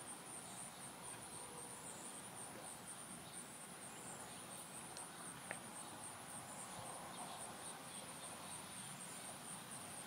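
Faint outdoor ambience: insects trilling in a steady, fast-pulsing high pitch over a soft hiss, with one small click about five and a half seconds in.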